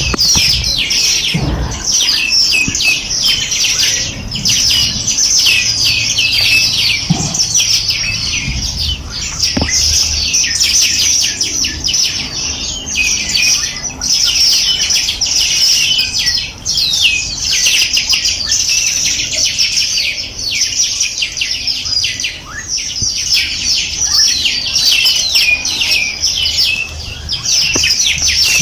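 Many small birds chirping and twittering at once: a dense, continuous chorus of quick, high, overlapping chirps.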